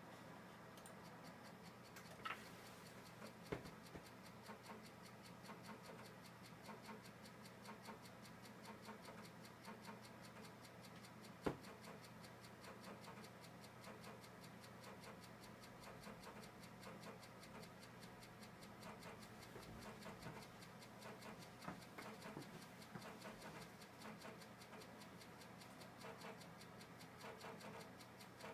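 Old computer running quietly: a steady low hum with rapid, regular ticking and a few sharper clicks, the loudest about eleven seconds in.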